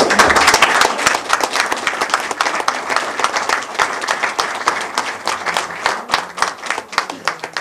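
A small roomful of people applauding: a dense patter of hand claps that thins out toward the end.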